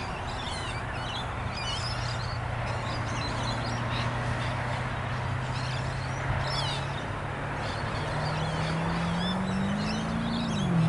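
Distant FPV model aircraft's motor droning at a steady pitch, rising and wavering near the end, with birds chirping throughout.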